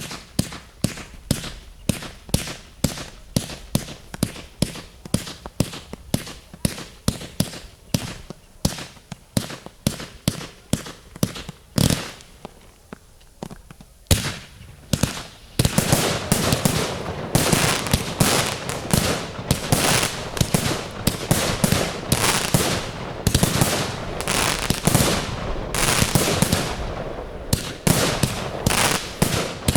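Fireworks display: a steady run of sharp bangs, about two to three a second, then a short lull about halfway through. After the lull comes a louder, dense barrage of overlapping bangs that runs on to the end.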